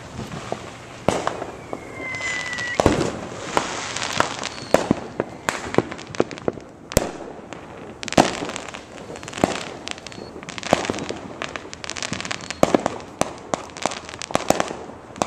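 Many fireworks going off at once on all sides: a dense, irregular run of bangs, pops and crackles, some sharp and close, others fainter and farther off.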